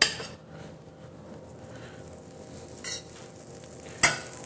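A metal utensil clinks sharply at the start and again near the end, against a plate and then the Health Craft 13-inch stainless steel skillet, as butter is taken up and put into the preheated pan. A faint sizzle starts after the second clink.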